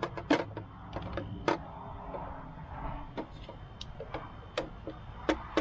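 White PVC pipe pieces knocking and clacking together as they are handled and pushed into PVC fittings in a dry fit: a string of irregular, sharp, hollow plastic taps.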